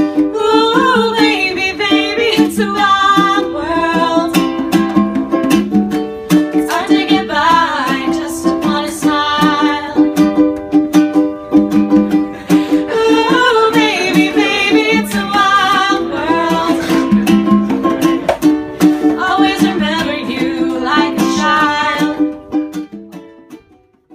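Background song: a singing voice over plucked-string accompaniment, fading out near the end.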